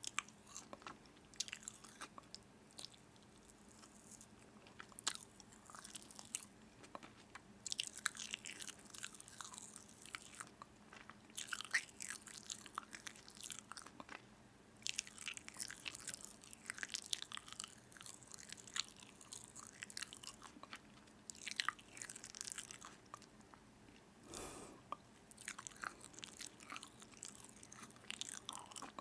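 A person biting and chewing crunchy food close to the microphone: runs of sharp, crackling crunches with short pauses between them. A softer, duller sound of about a second comes near the end.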